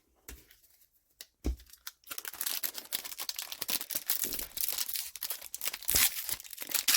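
A trading-card booster pack's wrapper being torn open and crinkled: dense crackling from about two seconds in, after a single soft knock.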